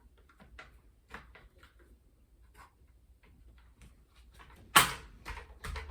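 Light plastic clicks and handling knocks, then a sharp loud snap about five seconds in as a small plastic piece pops into place on a spin bike, followed by a few lighter clicks.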